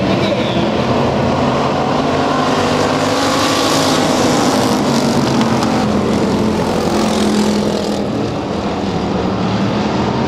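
Engines of several dirt-track stock cars racing around the oval: a loud, continuous drone of overlapping engine notes that rise and fall in pitch as the cars pass.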